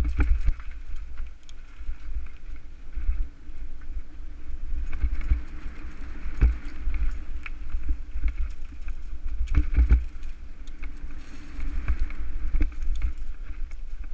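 Mountain bike rolling fast over a rough dirt trail: a steady low rumble of ride vibration with frequent knocks and rattles as the bike hits bumps and roots, the hardest jolts about six and ten seconds in.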